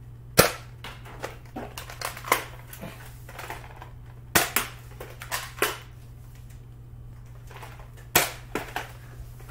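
Sharp plastic snaps of Nerf blasters firing, three loud ones about four seconds apart, each followed by lighter clicks and taps. A steady low hum runs underneath.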